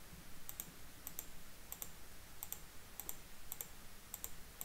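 Computer mouse clicks, faint and sharp. Each comes as a quick pair, about seven pairs in all, one roughly every two-thirds of a second, as grades are picked from dropdown menus on a web form.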